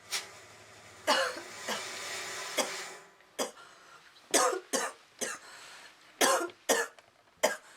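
A woman coughing in a fit of about ten short, harsh coughs as she chokes on thick vape smoke. A steady hiss runs under the first three seconds.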